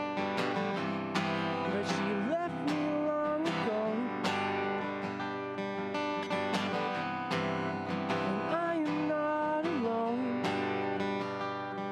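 Live solo acoustic guitar, strummed steadily, with a man singing at a microphone; sung phrases come a couple of seconds in and again about eight seconds in.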